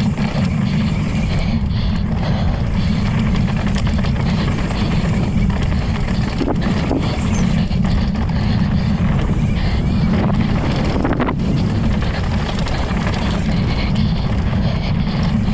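Heavy wind buffeting on the microphone of a camera on a mountain bike riding a dirt downhill track, over a steady hiss of knobby tyres on dirt. A few knocks come from the bike over bumps.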